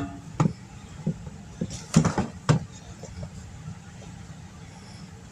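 A few short knocks and clatters of kitchen utensils and containers, the loudest two about two seconds in, over a steady low hum.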